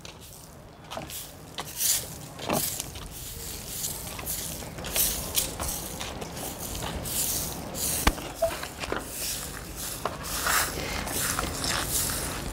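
Short straw hand broom sweeping sandy dirt and debris into a metal dustpan, in quick repeated brushing strokes with a few sharp knocks.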